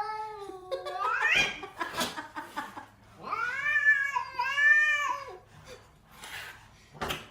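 A cat yowling: a drawn-out call that climbs in pitch at its end, then a longer two-part yowl about three seconds in.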